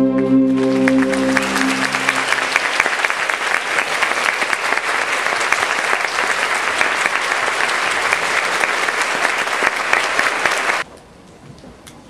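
Theatre audience applauding, starting over the orchestra's final held chord, which dies away within the first two seconds. The applause cuts off suddenly near the end.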